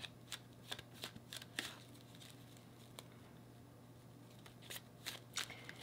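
Faint soft clicks and slides of a tarot deck being shuffled by hand, in two spells with a quieter pause between them.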